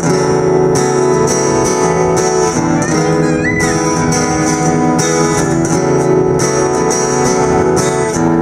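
Acoustic guitar strummed steadily, an instrumental passage in a song with no singing.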